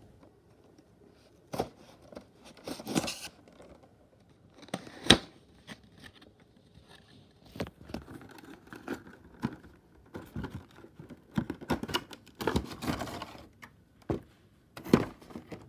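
Cardboard toy box with a clear plastic window being opened by hand: irregular clicks and rustles of the cardboard and plastic packaging, sparse at first and busier in the second half.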